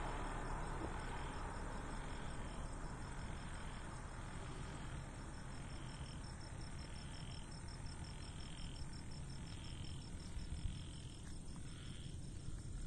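Crickets chirping at night in a steady, fast pulsing trill, with a second caller repeating short notes about once every three-quarters of a second. The noise of a passing car fades out in the first couple of seconds.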